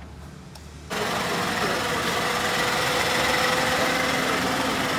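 Quiet at first, then about a second in the sound switches abruptly to a Suzuki car engine idling steadily with a hum. The engine is running on freshly filled oil after an oil change.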